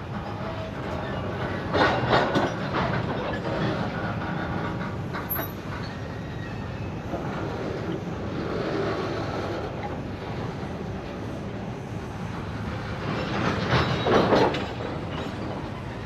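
CSX freight cars rolling on the rails, wheels clacking over joints, with a louder clattering rattle about two seconds in and again near the end.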